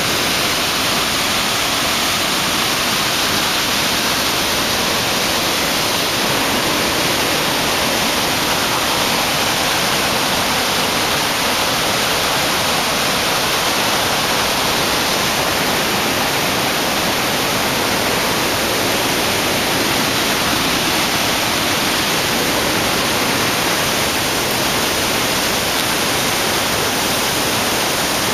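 Waterfall cascading down a narrow rocky gorge: a steady, loud rush of white water that holds even throughout.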